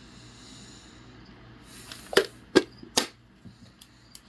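Three sharp knocks about half a second apart, a couple of seconds in, followed by a few faint clicks: hard objects being handled and set down on a work surface.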